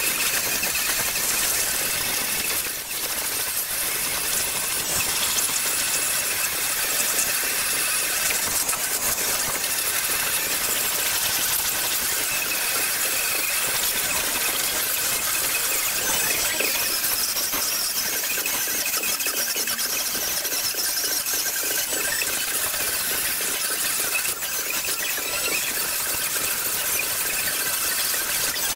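Pneumatic die grinder running with a steady, high squealing whine as its small burr grinds rust out of a steel car quarter panel, easing off briefly about three seconds in and again near the end.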